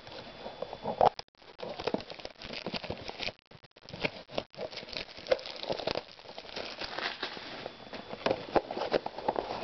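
Crinkling and rustling of packaging with many small irregular clicks and crackles: a trading-card blaster box being opened and its foil packs handled.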